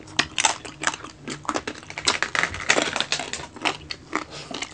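Crispy roast-pig (lechon) skin being bitten and chewed close to the microphone: a rapid, irregular crackling crunch.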